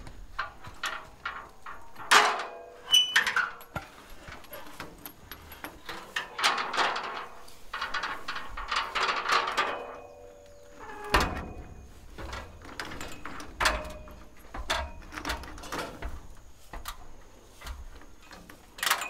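Scattered knocks, clanks and rustling of hands-on work at a ladder leaned against a corrugated-steel water tank, with a louder stretch of rustling about six seconds in.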